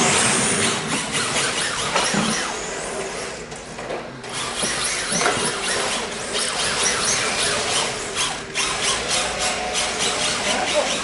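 Several small electric radio-controlled cars driving on a carpet track: their motors whine, rising and falling in pitch as they speed up and slow down, mixed with squealing from the tyres.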